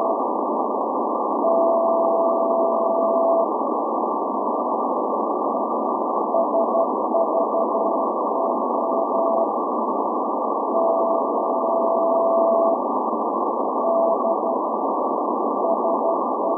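Shortwave reception of the SVO maritime coast station's channel marker in Morse code: a steady tone at about 700 Hz keyed on and off over loud, narrow hiss of band noise. Groups of short dots and dashes alternate with two long unbroken tones of about two seconds each.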